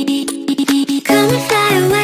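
Background music, an English pop song: a melody line over a steady beat, with a brief choppy break about halfway through.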